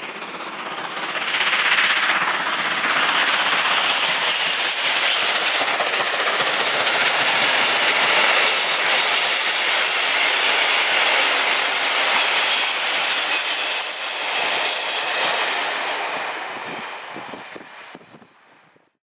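Steam locomotive 18 201 and its passenger coaches passing close by, a loud, steady rush of engine and rolling wheels with the coaches clattering over the rails. It swells in about two seconds in and fades away near the end.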